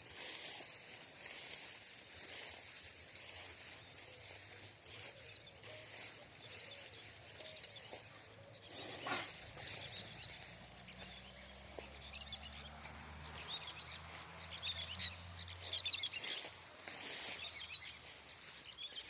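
Outdoor natural ambience: a steady high hiss with small birds chirping, the chirps clustering about two-thirds of the way through. A low hum rises in the background during the same stretch and fades.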